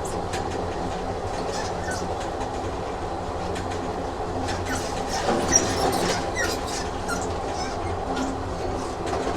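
Train running on rails: a steady rumble with the clicks of wheels over rail joints and a brief wheel squeal about halfway through.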